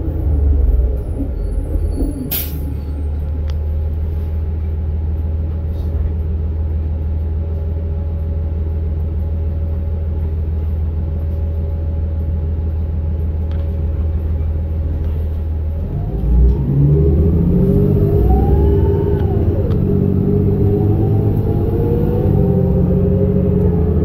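2007 New Flyer C40LFR transit bus heard from inside the cabin: the engine idles steadily at a stop, with a brief sharp click about two seconds in. About sixteen seconds in, the bus pulls away, the engine revving up and the transmission whine rising and falling as it shifts.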